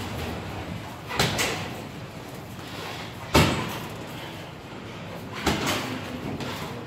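Sharp thuds of sparring strikes landing: a quick double about a second in, the loudest single hit midway, and another quick double later.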